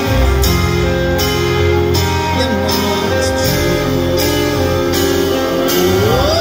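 Live rock band playing through a concert PA, guitars to the fore, with a note that slides upward near the end.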